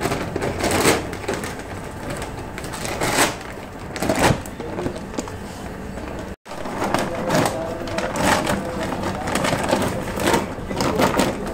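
Commercial wet grinder (pulveriser) running, with irregular clattering knocks over a steady noisy rumble. The sound drops out completely for a moment about six seconds in.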